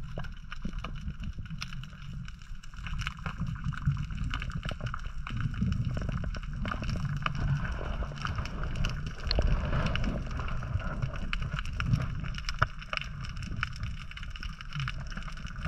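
Underwater ambience: a constant low rumble of moving water with scattered clicks and crackles, and a faint steady hum higher up.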